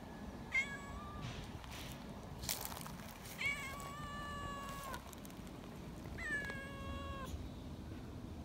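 Young cats meowing in shrill, high-pitched cries, excited at being held. There are three long meows, each dropping in pitch at the start and then held, and the middle one is the longest.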